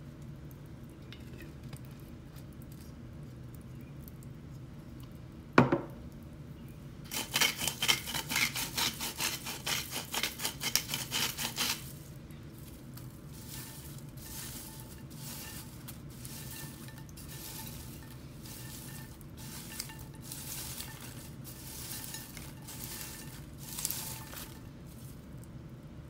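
Popped popcorn rustling as hands toss it in a bowl, in quick bursts: loud for about five seconds, then softer and sparser. A single sharp click comes a little before the rustling starts.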